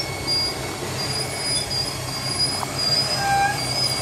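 Dodge Nitro rolling backward down steel trailer ramps on a winch line: thin, high squeals come and go over a steady low hum.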